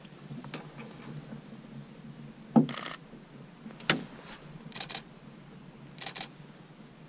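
Scattered knocks and clicks from camera gear handled in a wooden boat. Two sharp, loud knocks come about two and a half and four seconds in, and two short rattling bursts of clicks follow later, in the manner of a camera shutter firing in quick succession.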